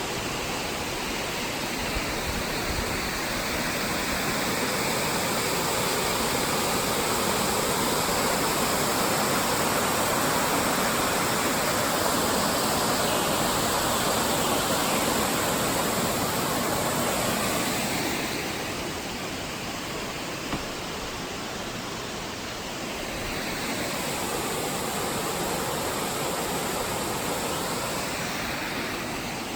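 Roughlock Falls cascading: a steady, loud rush of falling water. It softens a little partway through and swells again a few seconds later.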